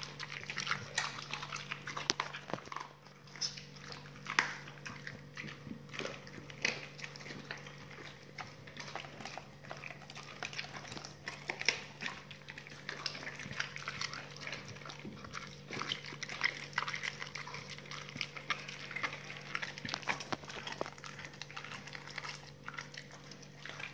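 A pit bull chewing and tearing at raw steak held in a hand: continuous wet chewing and smacking, with many sharp clicks of the teeth and jaws.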